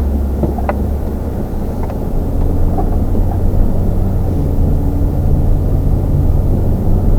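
A motor vehicle running steadily: a low rumble with an even engine hum. A couple of small clicks sound in the first two seconds.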